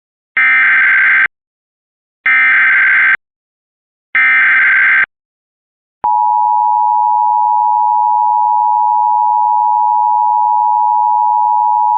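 Emergency Alert System SAME header: three short bursts of data tones, each just under a second and about a second apart, encoding a civil-authority shelter-in-place warning. About six seconds in they give way to the steady two-tone EAS attention signal.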